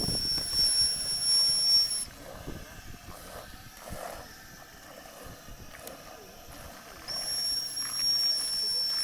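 Model steam boat's steam whistle blowing a steady, high-pitched note with a hiss of steam. It cuts off about two seconds in and sounds again about seven seconds in until the end.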